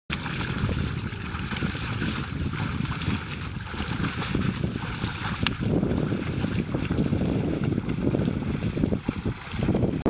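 Wind buffeting the microphone over the sloshing and splashing of a pair of oxen dragging a leveller through muddy paddy-field water, with one sharp click about halfway.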